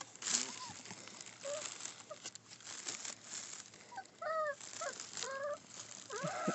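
Dalmatian puppies shifting on crinkly bedding, with rustling and light clicks, then about four seconds in a puppy gives a few short, high whimpers.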